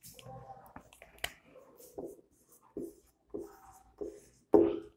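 Marker writing on a whiteboard: a series of short strokes, some faintly squeaky, with a sharp click about a second in.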